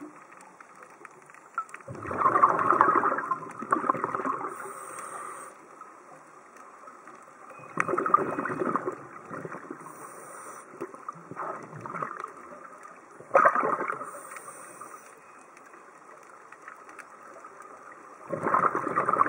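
Scuba diver breathing through a regulator underwater: four bursts of exhaled bubbles, about five seconds apart, each lasting a second or two, with a faint high hiss between some of them.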